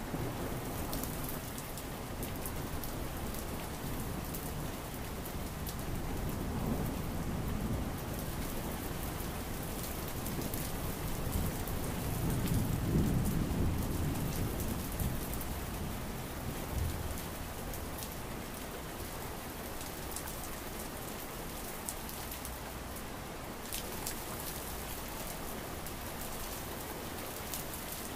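Steady rain falling, with a low thunder rumble swelling and fading around the middle.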